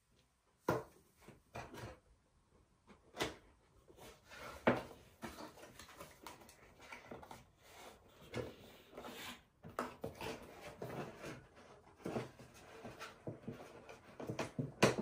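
Handling and unpacking noises from a boxed remote-control toy car: scattered clicks, knocks and rustling of packaging, with the loudest knock near the end.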